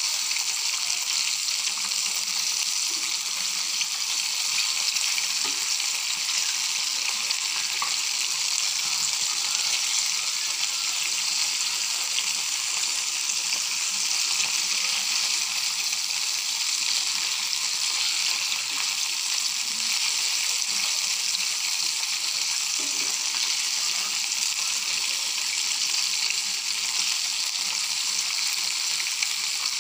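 Battered chicken pieces deep-frying in hot oil in a kadai on a low flame, a steady even sizzle with fine crackling.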